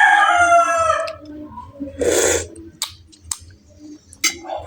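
A rooster crowing, one long call falling in pitch that ends about a second in. Then there is a short crunchy noise around two seconds and a few sharp clicks, typical of someone taking a bite and chewing close to the microphone.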